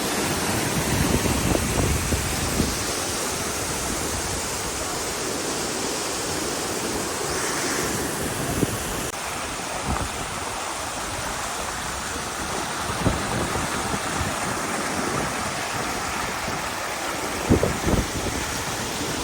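Steady rushing roar of a waterfall's falling water, with occasional short low bumps on the microphone, the strongest near the end.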